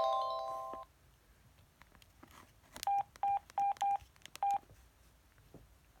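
Samsung SGH-E700 flip phone: the end of its power-on melody, held tones fading out within the first second, then five short identical keypad beeps with light key clicks as the SIM PIN is keyed in and confirmed.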